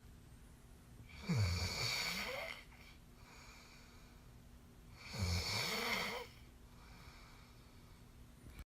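A sleeping man snoring: two long rattling snores about four seconds apart, each with a low buzz over breathy noise.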